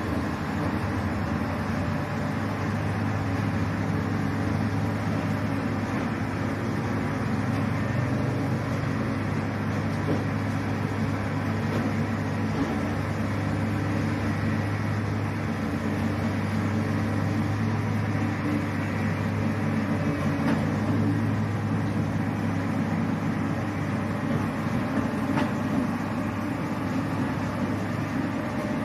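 A heavy engine drones steadily with a strong low hum and no break or change.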